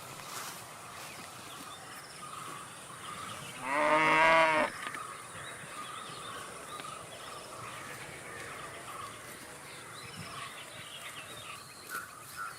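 A cow moos once, a short call of about a second a little before the middle, over a faint steady background hiss.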